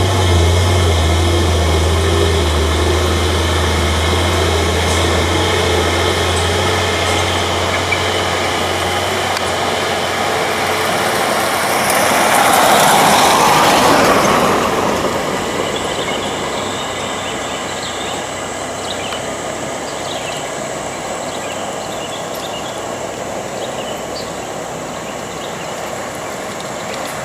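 Loaded timber truck's diesel engine running under load, a strong low drone that fades after several seconds. About midway a louder rush of noise swells and dies away as the truck passes close, then a quieter steady rumble with faint light rattles.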